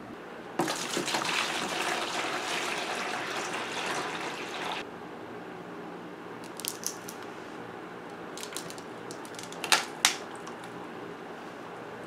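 Water pouring and splashing into a plastic bucket for about four seconds, stopping suddenly. Then a frozen plastic milk jug of ice is handled, with light clicks and two sharp knocks near the end as it is set down into the bucket.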